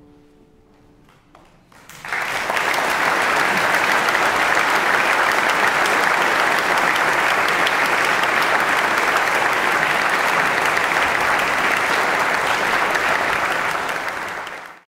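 The last held chord dies away, then about two seconds in an audience breaks into steady applause, which fades out just before the end.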